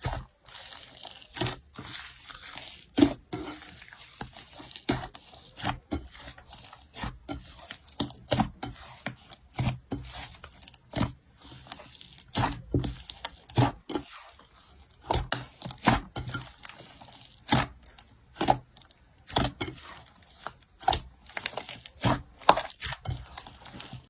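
Slime being squeezed, stretched and poked by hand, giving an irregular string of sharp pops and crackles, roughly two a second.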